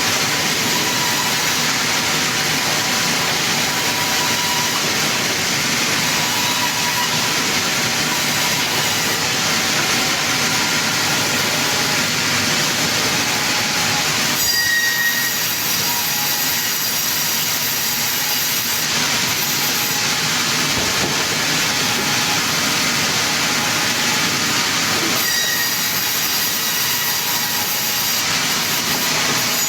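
Sawmill circular saw running and cutting wood: a loud, steady whine with high screeching tones. The tone shifts sharply about halfway through and again near the end.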